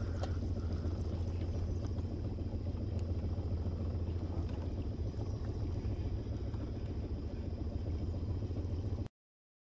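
Boat motor running steadily at low speed, a constant low hum that cuts off abruptly near the end.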